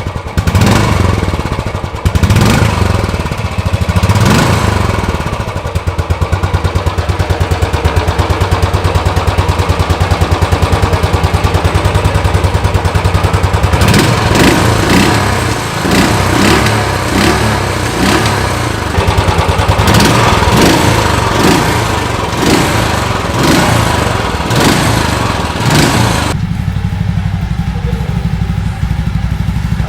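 Royal Enfield Classic 350 (BS6) single-cylinder engine idling through its exhaust and being revved in repeated short throttle blips. Near the end the sound changes abruptly to another single-cylinder motorcycle idling.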